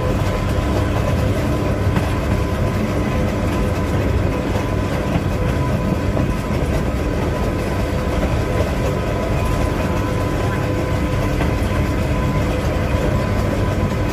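Vintage 1934 electric rack tram climbing the hill, heard from on board: a steady rolling rumble with a constant whine of several steady tones.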